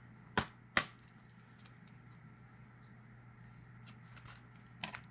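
Two sharp plastic clicks about half a second apart, then a few faint handling ticks: a plastic disc case being snapped open.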